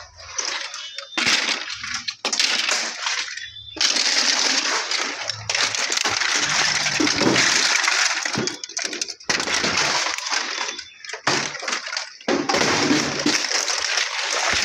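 Broken plastic appliance scrap clattering and crunching, many sharp cracks and knocks run together, in stretches of a few seconds with short breaks between them.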